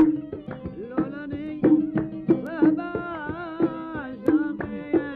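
Oud played in the Gulf sawt style: a run of plucked notes with percussion strikes over them, and a wavering held melodic line about three seconds in.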